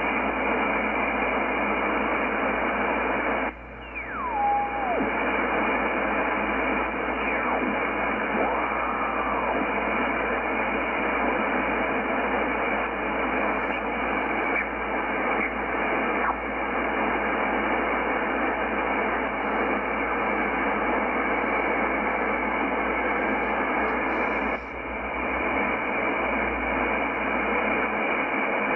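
Shortwave static from a Yaesu FTdx10 transceiver being tuned in upper sideband across the 17.9 to 18 MHz aeronautical band: a steady, muffled hiss. About four seconds in, a whistling tone slides down in pitch and holds briefly. The noise dips for a moment twice.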